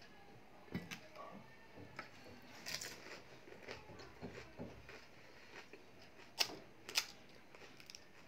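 Crisp fried puri shells (golgappe) crackling and clicking as fingers crack them open and fill them. Short crackles are scattered through, and the two loudest are sharp clicks about half a second apart near the end.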